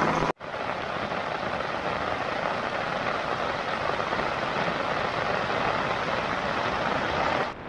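Heavy rain falling in a steady, even hiss that starts after a short cut and ends abruptly near the end.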